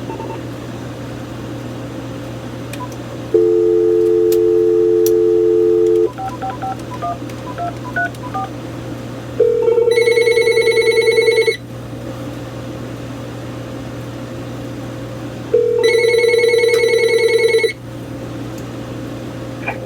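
Telephone dial tone for about three seconds, then a quick run of touch-tone keypad beeps as a number is dialled. A warbling electronic ring then sounds twice, about two seconds each and four seconds apart, as the call comes through to the Uniden cordless phone.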